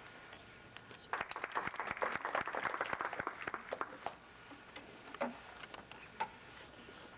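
Brief scattered applause from a small audience of a few dozen hands or fewer, starting about a second in and fading out after a few seconds, followed by a few isolated knocks and clicks.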